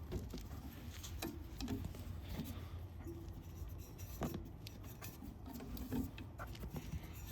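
Scattered light clicks, taps and small scrapes from hands-on work taking apart a heat pump's sheet-metal and copper-pipe parts, over a steady low hum.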